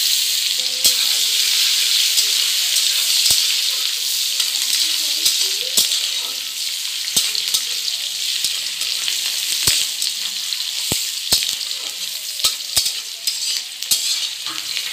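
Chopped onion sizzling in hot oil in a metal kadai, with a metal spatula stirring and clicking against the pan a dozen or so times. The sizzle is loudest right after the onion goes in and eases off slowly.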